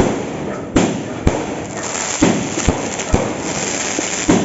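Dragon Fireworks 'Wind Walker' 16-shot cake firing: about seven sharp bangs at uneven intervals, with a steady crackle between them.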